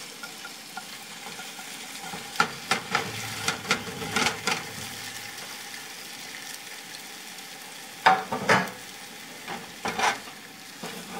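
Potato-and-egg omelette sizzling steadily in olive oil in a frying pan, as it is slid back into the pan from a plate. A silicone spatula and the plate scrape and knock against the pan in short clusters, the loudest knocks coming a little past the middle.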